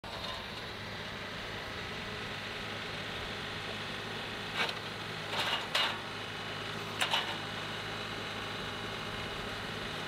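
John Deere 2038R compact tractor's three-cylinder diesel engine running steadily, with a few short knocks about halfway through as the loader grapple handles an oak log on the sawmill bed.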